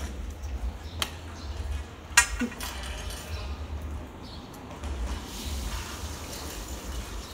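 Metal clinks and knocks from the steel pipe and clamp of a hand-operated well-boring rig being handled, with a sharp clank just after two seconds in, over a steady low rumble.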